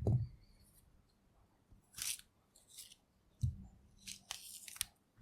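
Orange peel being torn off by hand: a few short, irregular bursts of tearing, crackling rind, with soft low thumps of the fruit being handled at the start and about three and a half seconds in.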